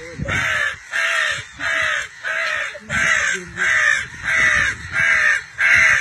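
A boy imitating a crow's caw with his mouth to call crows in: a steady run of about nine caws, one roughly every two-thirds of a second, that stops near the end.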